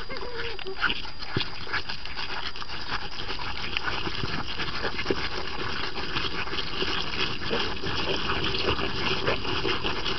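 Underwater coral reef sound: a dense, continuous crackle of short sharp clicks over a steady hiss, with a faint steady hum beneath.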